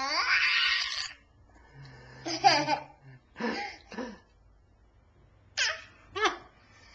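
A toddler laughing in short bursts, the first one, in the opening second, the loudest, with a few babbled sounds in between.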